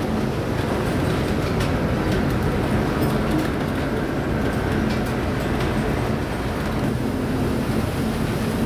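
Steady low rumble on board an emergency response and rescue vessel in a storm: the ship's engine hum mixed with wind and heavy sea against the hull, with a few faint rattles.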